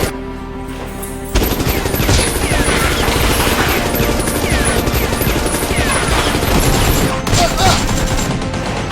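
Rapid bursts of automatic gunfire, dense and continuous from about a second and a half in until shortly before the end, over background music.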